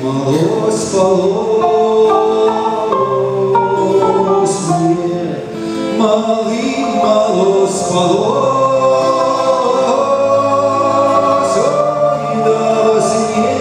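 Voices singing a slow old Russian folk song in long, held phrases, over sustained low notes from the trio's garmoshka (button accordion) and balalaika accompaniment.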